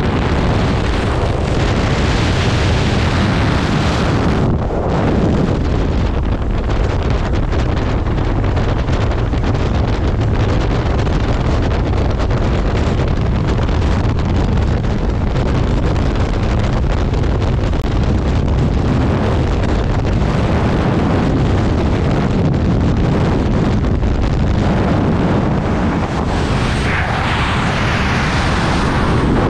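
Skydiving freefall: loud, steady wind noise buffeting the jumper's camera microphone. For the first four seconds or so, at the open door of the jump aircraft, the wind is mixed with the plane's slipstream and engine; the sound changes at the exit from the aircraft.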